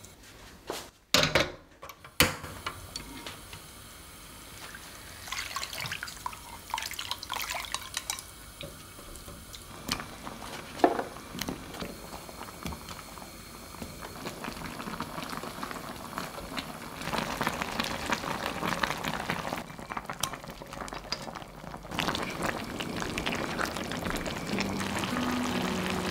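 A few sharp knocks and splashes about a second in, as parboiled chicken is scooped from boiling water with a metal mesh strainer. Then a pan of chicken, potatoes and carrots simmers and bubbles on a portable gas burner, the bubbling growing louder in the last several seconds.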